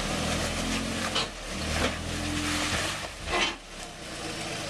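Toyota Tacoma pickup's engine pulling at low revs as the truck crawls over a rock ledge, easing off about three and a half seconds in. A few sharp knocks come through as it rolls over the rock.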